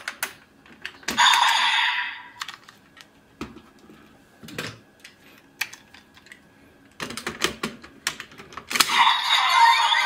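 Plastic clicks and clacks of a Bandai DX Kamen Rider transformation-belt buckle toy being handled and its parts worked. A short burst of the toy's electronic sound effect comes about a second in, and louder electronic sound from its speaker starts near the end.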